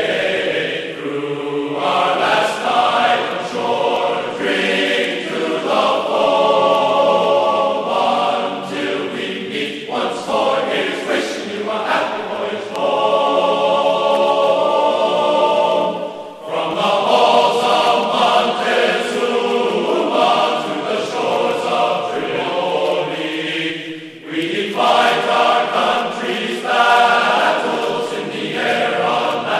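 Choir singing a slow song in long held phrases over music, with brief breaks between phrases about 16 and 24 seconds in.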